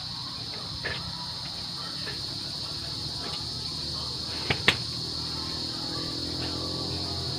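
Insects chirring steadily in a high, even band, with a few sharp clicks, the loudest two close together about four and a half seconds in.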